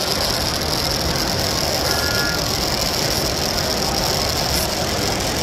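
Battery-powered Tomy plastic toy trains running on the layout's track: a steady high-pitched motor whine over the even hum of a busy exhibition hall.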